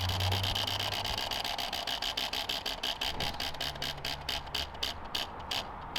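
Prize wheel spinning down, its clicker flapping against the pegs: the ticks start as a fast rattle and slow steadily to two or three a second near the end as the wheel comes to rest.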